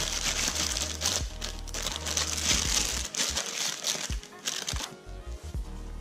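Plastic packaging crinkling in bursts as it is handled and unwrapped: two long bouts in the first three seconds and a short one about five seconds in. Background music plays underneath.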